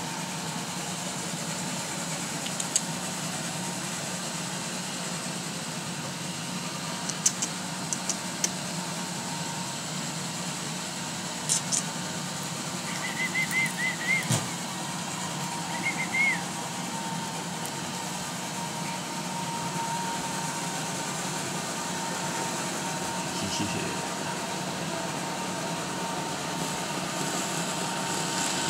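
Roomba robot vacuum running with a steady motor drone and whine, broken by a few sharp clicks and two brief high warbling chirps partway through.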